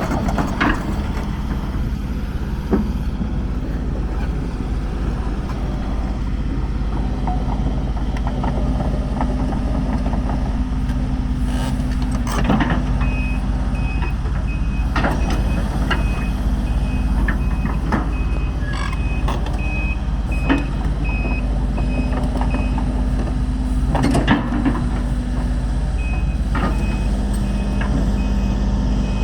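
Link-Belt 145X3 excavator's Isuzu four-cylinder diesel running steadily, with its warning alarm beeping in a steady series from about halfway through, pausing, then starting again near the end. A few sharp metallic knocks come in between.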